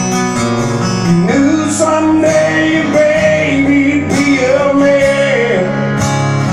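Acoustic guitar strummed under a man's singing voice, which holds a long wavering sung line from about a second in until shortly before the end.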